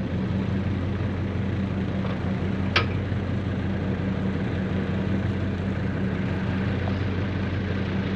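Electric walk-behind pallet stacker humming steadily as its forks are lowered, with one sharp click about three seconds in.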